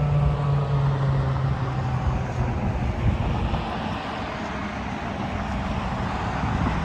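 Outdoor warning siren winding down, its tone sliding lower and fading out over the first two or three seconds. A steady outdoor rumble and hiss carries on after it.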